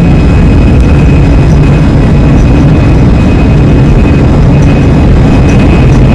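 Airbus A320 jet engines running loud and steady, heard inside the passenger cabin: a dense low rumble with a thin, steady high whine on top.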